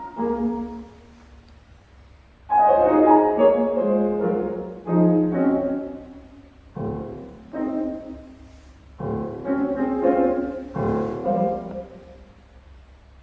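Solo piano improvising in short phrases of chords and note clusters, each struck sharply and left to ring away. The phrases are separated by brief pauses, and the first loud entry comes about two and a half seconds in.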